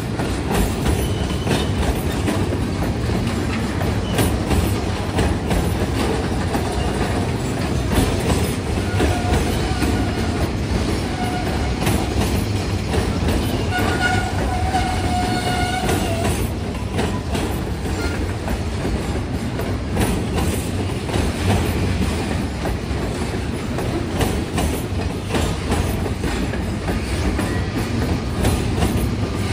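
Long freight train of container wagons rolling past with a steady rumble and the clatter of its wheels on the rails. Around the middle there are a few short wheel squeals.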